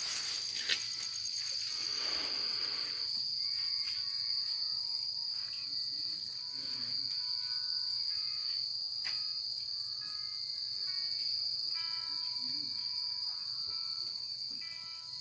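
Crickets trilling in a steady, high-pitched chorus, with scattered short lower chirps throughout. A few handling clicks and a brief rush come in the first few seconds.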